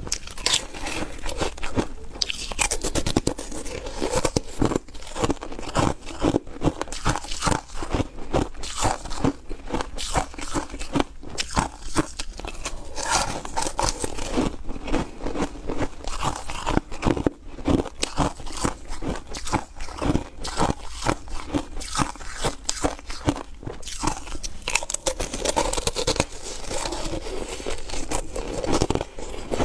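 Close-miked biting and chewing of soft foam ice: a dense, irregular run of crunches that goes on without a break.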